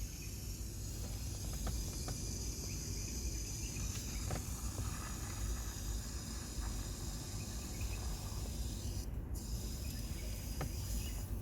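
Aerosol can of foam air-conditioner cleaner spraying through its tube into a car air vent: a steady hiss that breaks off briefly about nine seconds in, with a few faint clicks.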